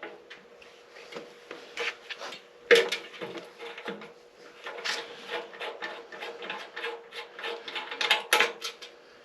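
Scattered clicks, taps and scrapes of hand tools and small metal parts on a Harley-Davidson springer front end as parts are worked loose, with the loudest knocks about three, five and eight seconds in, over a faint steady hum.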